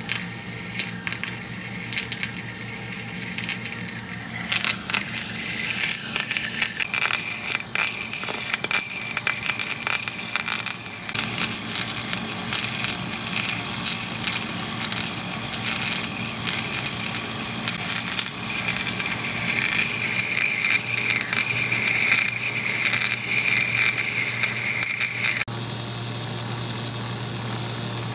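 Portable EDM machine's electrode spark-eroding a broken steel tap under flowing coolant water: a dense, rapid crackling with a steady high whine. It starts about four seconds in and cuts off abruptly near the end, leaving a steady low hum and running water.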